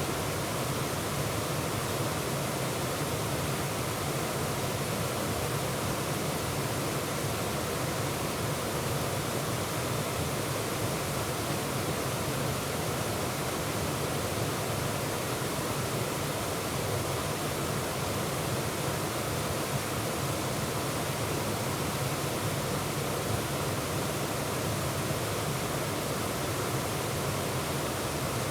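Waterfall rushing, heard close up from the middle of the falls: a steady, even wash of falling water with no change in level.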